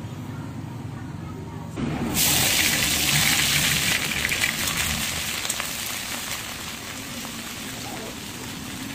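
Hot oil in a kadai bursting into a loud sizzle about two seconds in as an ingredient goes in, then bubbling and frying as it is stirred with a spatula, the sizzle slowly dying down. A low steady rumble runs underneath throughout.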